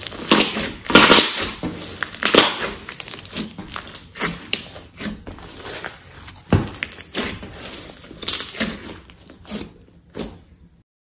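Hands squeezing, stretching and pressing thick slime mixed with clay: sticky squishing and crackling in irregular bursts. The sound cuts off suddenly near the end.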